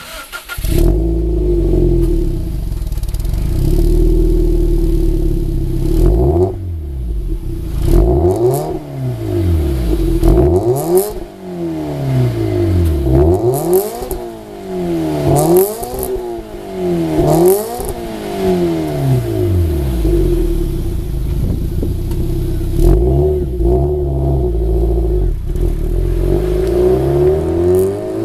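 Subaru Impreza WRX STI's turbocharged EJ20 flat-four heard at the HKS Super Turbo Muffler tailpipes: idling steadily, then revved in a series of blips, each climbing in pitch and falling back. It settles to idle for a few seconds before a few more blips near the end.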